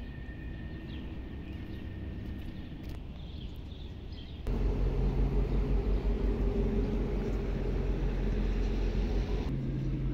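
Quiet outdoor city rumble, then an abrupt switch about four and a half seconds in to a louder, steady engine rumble with a low hum: a river boat's motor heard from on board.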